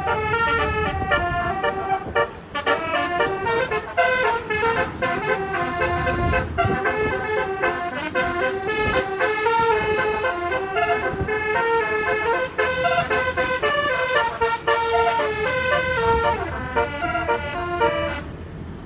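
Basuri telolet bus horn playing a melody: loud, held horn notes stepping quickly from pitch to pitch, cutting off shortly before the end.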